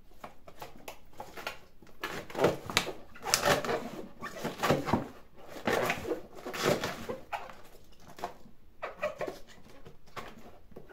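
Rustling and knocking of vegetables being handled and packed into a plastic pickling drum, busiest through the middle stretch.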